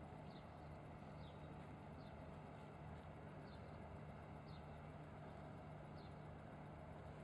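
Faint waterfront ambience: a steady low hum under a quiet even hiss, with a faint short falling chirp high up repeating roughly once a second.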